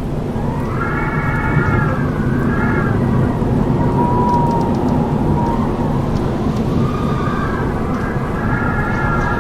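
Strong wind: a steady low rush with howling whistles that swell and fade, one near the start and another near the end, and a thinner single whistle in between.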